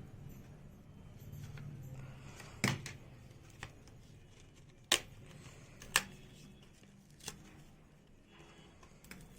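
Hard plastic blister packaging of a laptop RAM module being worked open by hand, giving several sharp plastic clicks and snaps at irregular intervals, the loudest two in the middle.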